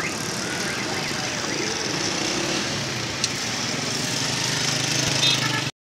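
Busy street traffic dominated by the small engines of motorcycles and auto-rickshaws running close by as a steady hum. It cuts off suddenly near the end.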